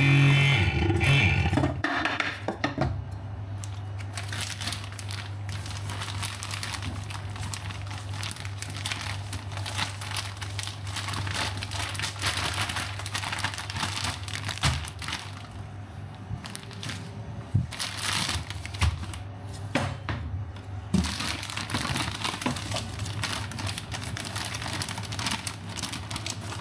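Plastic crinkling and rustling as it is handled, a dense run of small crackles that comes and goes over a steady low hum.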